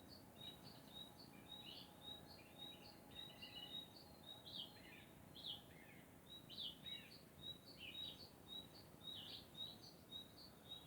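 Faint birdsong: a steady run of short, high chirps and twitters, several a second, some notes sweeping downward.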